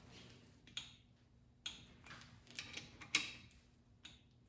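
Torque wrench ratcheting on a connecting-rod cap bolt while it is tightened to its first-stage 18 lb-ft, giving a few sharp, irregular metal clicks, the loudest a little past three seconds in.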